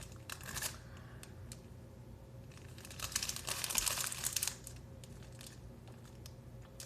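Crinkly plastic snack-cake wrapper being handled: a short rustle at the start, then a denser burst of crinkling about two and a half seconds in that lasts about two seconds.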